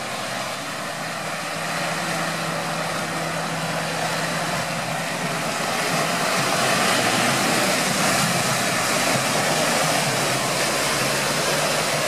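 Mitsubishi Pajero Sport engine working hard under load as the SUV ploughs through deep mud and water, with mud and water splashing around it. It grows louder about six seconds in.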